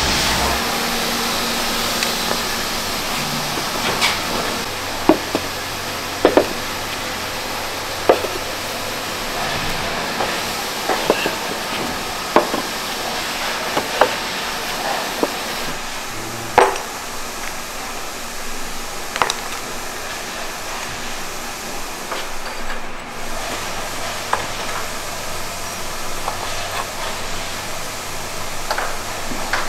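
Irregular light knocks and clacks as kiln shelf boards and refractory posts are set down while unfired earthenware pots are stacked for firing, over a steady background hiss of factory noise.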